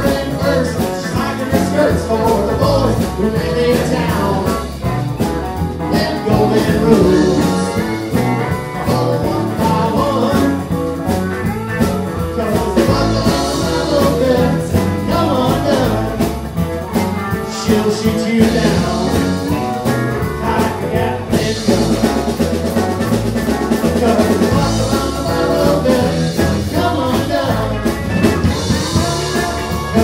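A live country band playing an instrumental break, with drums, bass, electric and acoustic guitars and a steel guitar.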